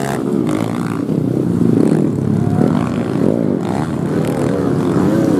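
Enduro dirt bike engines revving, the pitch rising and falling again and again as the throttle is worked on and off.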